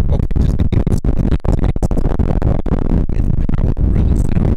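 Wind buffeting a Vitopal VM-i1 compact shotgun microphone with its furry deadcat windscreen removed: a loud, dense low rumble with many brief dropouts that swamps the voice.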